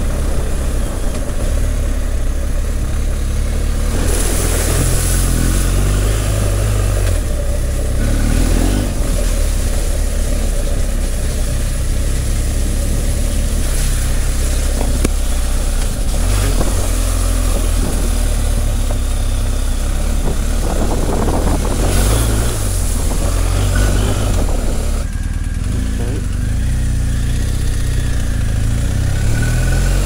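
BMW R1250GS Adventure's boxer-twin engine running as the bike is ridden along, a steady low rumble, with wind rushing over the on-bike microphone and swelling in gusts several times.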